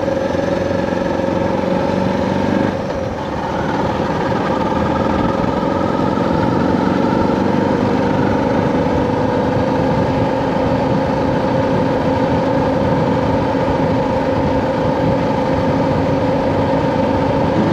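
Suzuki DR650 single-cylinder engine running steadily under way, with wind noise. About three seconds in the engine note dips briefly and shifts, as with a change of throttle or gear, then it holds steady.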